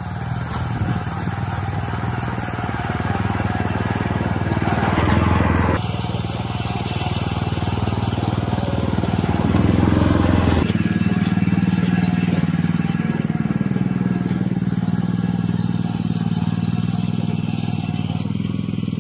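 Small petrol engine of a snow-clearing machine running steadily while it works through snow. Its note and load shift about six seconds in and again near eleven seconds.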